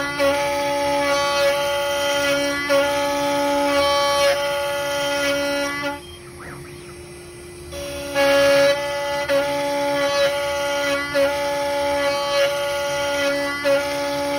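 CNC router spindle and bit cutting a deep mortise in wood: a loud, steady pitched whine with several overtones that dips briefly about every second and a half. A little past the middle the cutting sound drops away for nearly two seconds, leaving a steady fainter hum, then starts again.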